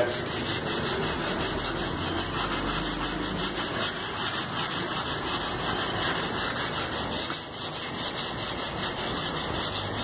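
Wet sandpaper scrubbed hard back and forth over the painted steel of a refrigerator door, in quick, even strokes. It is grinding rust blisters flat, down towards bare metal.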